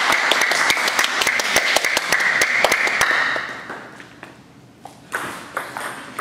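Hand clapping and applause for a won table tennis point, dying away about three and a half seconds in. Near the end, a few sharp taps of the ping-pong ball on bat and table as the next rally starts.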